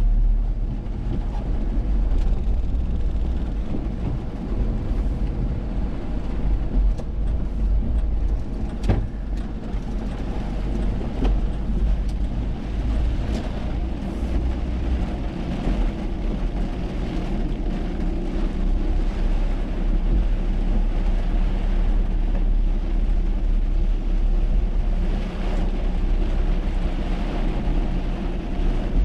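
A car driving on a rain-soaked road, heard from inside: a steady low engine and road rumble with tyre hiss that swells and eases. A few sharp clicks come about seven to nine seconds in.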